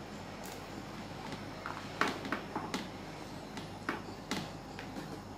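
Irregular light clicks and taps of cooking: a steel spoon against a steel pot and dry fruit being handled from a tray, over a steady low hum.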